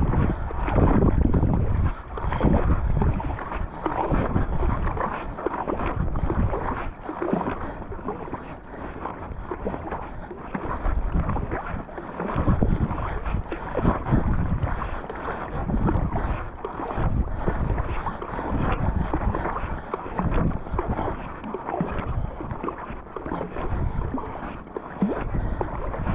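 Rapid kayak paddle strokes: a Werner Cyprus paddle's blades splash in and pull through the water, left and right in turn, about one stroke every second and a half, with water rushing along the sea kayak's hull. Wind buffets the microphone throughout.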